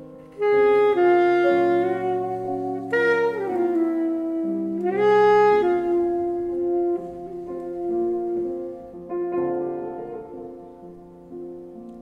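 Saxophone playing a slow melody of long held notes, some sliding in pitch, over soft grand piano chords.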